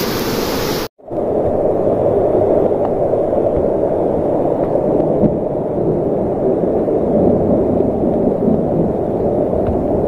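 Steady rushing noise. About a second in it cuts out for a moment and comes back duller and deeper, then runs on evenly.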